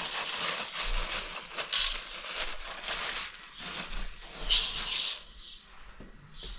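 Dry rice grains pouring and rustling into a large aluminium basin from a crinkling plastic bag, with two louder rushes before the rustle dies away about five seconds in.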